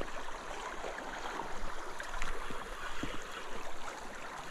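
Shallow river water flowing steadily, an even rushing wash, with a few faint clicks.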